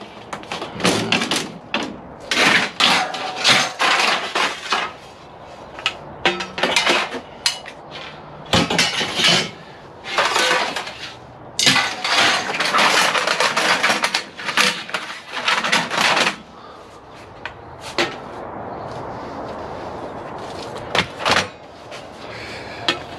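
Lengths of 6063 aluminum extrusion scrap clattering, scraping and clinking against each other as they are handled in a loaded car. The clatter stops about two-thirds of the way through, leaving a few light knocks.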